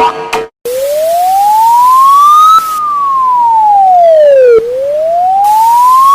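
Emergency alert siren wailing: a single clear tone rising for about two seconds and falling for about two, over and over, starting about half a second in. Just before it, a run of short electronic beeps cuts off.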